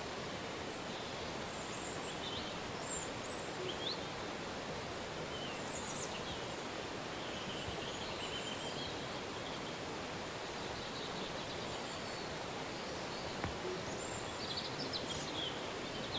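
A river flowing steadily, with birds giving scattered short chirps and calls above it, a few more of them near the end.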